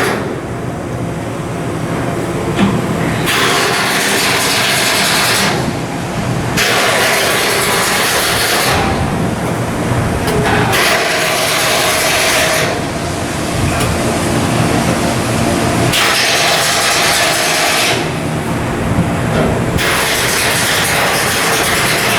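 Loud machinery noise: a steady mechanical hum, with stretches of hissing noise every few seconds that start and stop abruptly.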